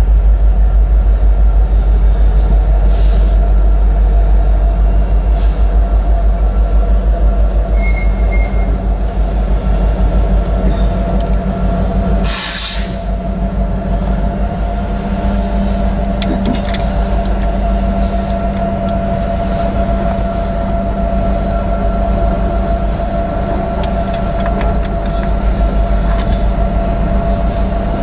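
Kansas City Southern freight train passing close by at a grade crossing: the diesel locomotive's engine running loud and low at first, then freight cars rolling past with steady wheel noise and occasional clicks. A short loud burst of noise comes about twelve seconds in.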